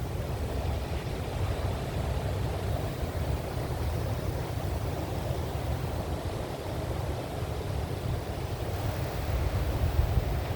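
Wind buffeting the microphone in a steady low rumble over the wash of ocean surf.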